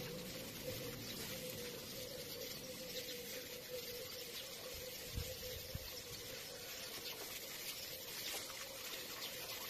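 Water from a garden hose splashing into potted plants, a steady hiss, with a faint steady hum underneath.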